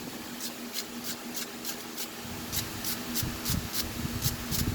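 A chainsaw spark plug being scrubbed clean by hand in quick, even rubbing strokes, about three a second, with a few low knocks in the second half.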